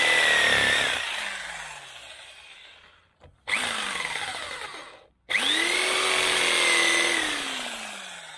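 Electric jigsaw cutting wood, switched on three times in short runs. Each run starts abruptly and its motor whine falls away as it winds down.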